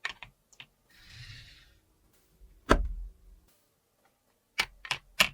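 Hard plastic playset pieces being handled, giving a few sharp clicks and knocks with a soft rustle between them: one louder knock near the middle, then three quick clicks near the end.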